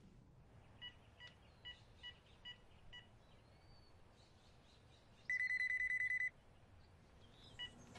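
Telephone keypad beeping as a number is dialed: about seven short beeps, roughly two a second. About five seconds in, a phone rings with one electronic trill lasting about a second, the loudest sound here, and a single short beep comes near the end.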